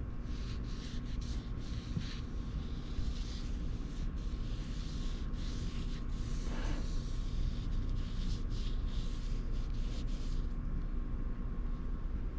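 Gloved fingertip rubbing motor oil onto the rubber gasket of an air filter, irregular soft rustling strokes that conditions the seal, over a steady low hum.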